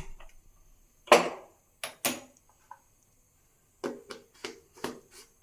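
Knocks and clicks of kitchenware at a gas stove being lit. There is a loud knock with a short ringing tail about a second in, two sharp clicks around two seconds, and a quick run of duller knocks near the end.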